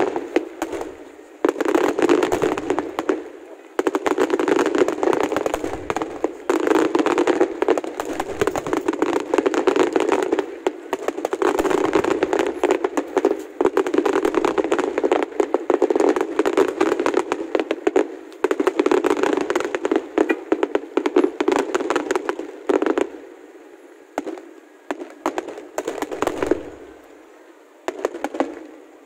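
Fireworks display going off in a dense, continuous barrage of bangs and crackles, thinning to scattered bursts for a few seconds near the end.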